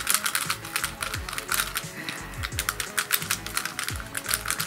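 DaYan ZhanChi 2018 3x3 speedcube being turned rapidly in a solve: a dense, fast clicking and clacking of the plastic layers. The cube is straight out of the box, not lubed or tensioned by the owner. Background music plays underneath.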